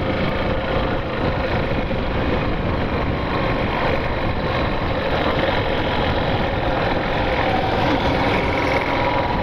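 Yamaha Factor 150's single-cylinder four-stroke engine running steadily as the motorcycle is ridden, mixed with wind and road noise on the helmet-mounted microphone.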